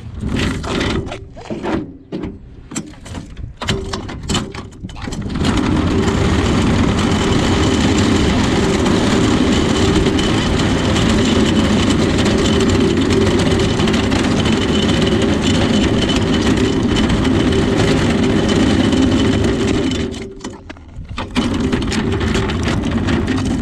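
Motor vehicle on the move: a few scattered knocks and rattles, then about fifteen seconds of steady loud road and engine noise that drops away briefly near the end before coming back.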